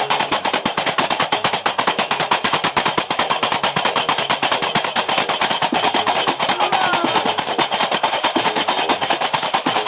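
Gnawa music: a fast, even clatter of qraqeb (iron castanets) over the plucked bass notes of a guembri.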